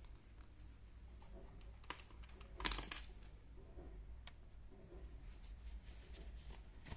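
Quiet handling noises from the watch and its packaging: scattered light clicks, a sharper click about two seconds in, and a short, louder rustle just under a second later.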